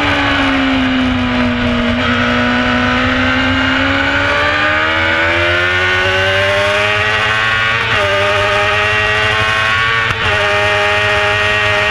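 Carburetted Honda CBR600 F4 inline-four race bike at full race pace, heard from on board. The engine note sinks over the first couple of seconds, then climbs steadily as the bike drives out of a long corner. It drops briefly about eight seconds in and again about ten seconds in, as it shifts up a gear each time.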